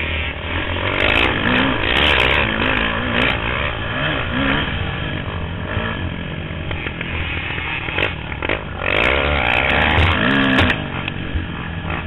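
Dirt bike engine heard close up from the rider's seat, revving up and down with the throttle while riding on a dirt trail. It pulls hardest twice, about a second in and again about nine seconds in, easing off in between.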